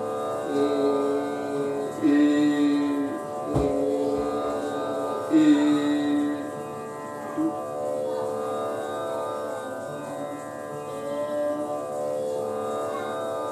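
A student singer holding sustained vowel notes, several in a row, over a steady drone, as a voice exercise producing the vowel in two ways, with and without the soft palate lifted.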